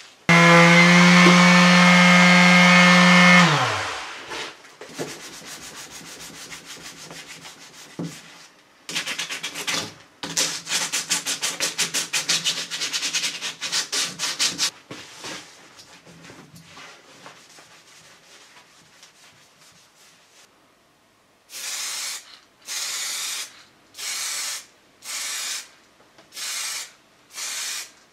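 A power tool's motor runs for about three seconds and winds down. Later come quick rasping strokes, then regular hand strokes of wet-and-dry sandpaper over car body filler and primer, about one a second.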